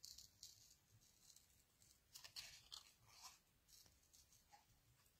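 Faint snips of small scissors cutting paper around a stamped image, in a few short clusters, most of them between about two and four seconds in.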